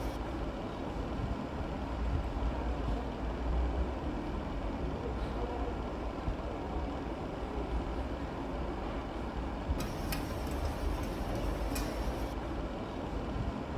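A chef's knife slicing a carrot on a plastic cutting board, with a couple of faint sharp knife taps about ten and twelve seconds in, over a steady low background rumble.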